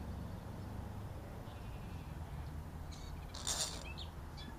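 A short, harsh animal call about three and a half seconds in, with a few fainter, higher chirps around it, over a low steady rumble.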